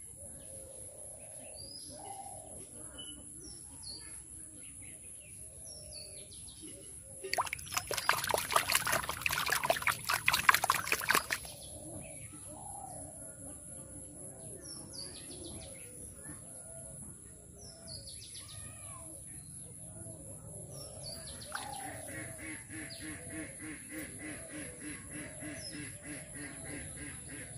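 Birds chirping and calling throughout, over a steady high-pitched whine. A loud crackling rattle lasts about four seconds, starting about seven seconds in, and a fast pulsing call joins near the end.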